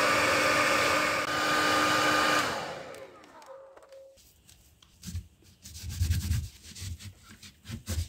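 Hand-held hair dryer blowing with a steady whirring and a faint whine. It is switched off about two and a half seconds in, and the motor spins down with a falling pitch over about a second and a half. Faint irregular rubbing and handling noises follow near the end.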